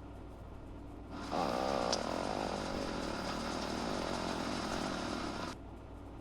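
A stomach growling: one long, rough, rumbling gurgle that starts sharply about a second in and stops abruptly about four seconds later.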